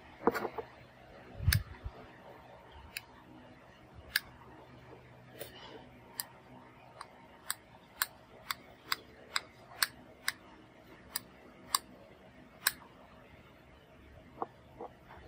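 Stylus and fingertip tapping a Samsung Galaxy Note 9's glass touchscreen while typing on the on-screen keyboard: about fifteen sharp little clicks, quickening to about two a second in the middle. Near the start there are two dull knocks from handling the phone.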